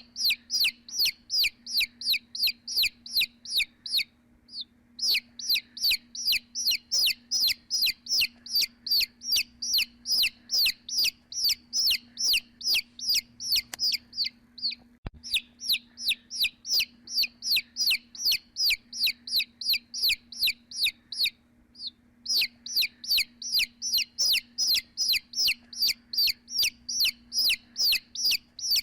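Baby chick peeping over and over: high, falling peeps about three a second, breaking off briefly about four seconds in and again about twenty-one seconds in.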